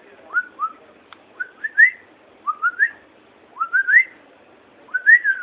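A person whistling: runs of two to four short notes that slide upward, each run climbing in steps, repeated about once a second. The last run tips down at its end.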